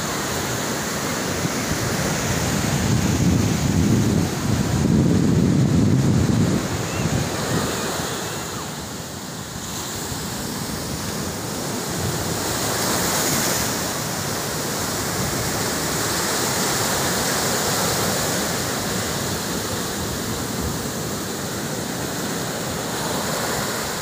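Sea waves breaking and washing up a sandy beach in a continuous rush of surf. The surf swells loudest about three to seven seconds in, then rises and falls more gently.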